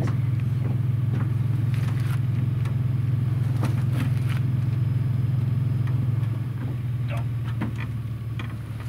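Pickup truck engine idling steadily, getting somewhat quieter about six seconds in, with a few light knocks and scrapes from handling the carcass at the tailgate.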